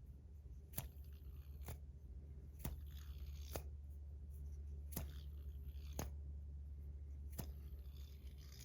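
Metal fidget toy being fidgeted in the hand: seven sharp clicks, about one a second, over a steady low hum.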